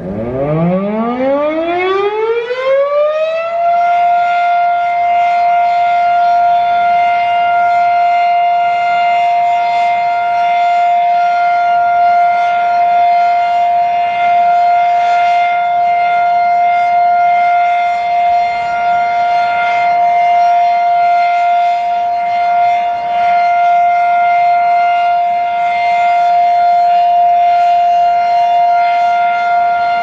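Fedelcode Model 7 electromechanical outdoor warning siren winding up from a low growl to full pitch over about four seconds. It then holds one steady, loud tone: the alert signal.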